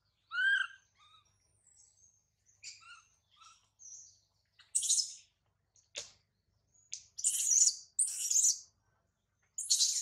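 Newborn macaque giving high, bird-like contact calls for its mother: a clear squeal that rises and falls about half a second in, a few softer chirps, then from about halfway a string of loud, harsh, shrill cries with short gaps between.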